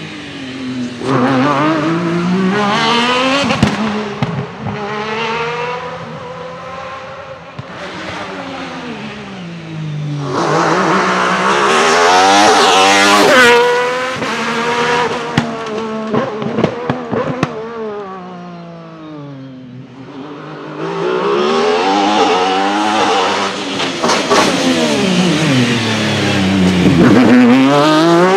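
Alfa Romeo 155 V6 Ti touring car's 2.5-litre V6 racing engine revving hard through several passes. Its pitch climbs in steps through the gear changes, then falls away under braking and downshifts, with short sharp cracks at the shifts.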